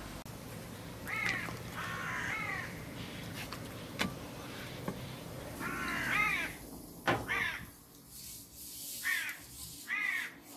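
Crows cawing repeatedly, in short runs of harsh calls. A few sharp knocks come from a knife working on a wooden cutting board.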